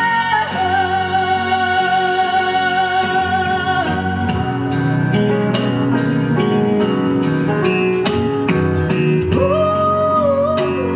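Music: a ballad backing track with guitar and long held melody notes, a steady beat coming in about four seconds in.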